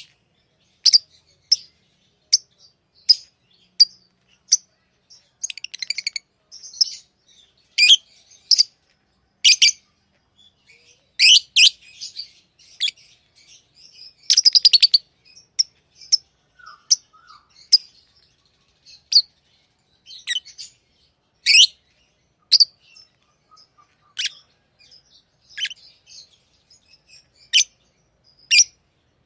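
Pet lovebirds chirping: short, sharp, high chirps at irregular intervals about once a second, with a quick run of rapid chattering notes around six seconds in and again around fourteen seconds in.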